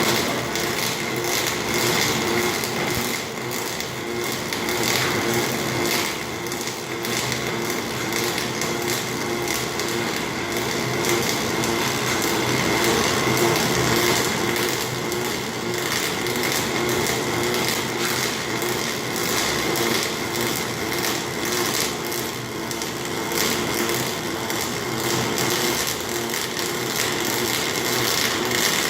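Welding robot's arc crackling and sizzling steadily, a dense rapid crackle with a faint steady hum under it.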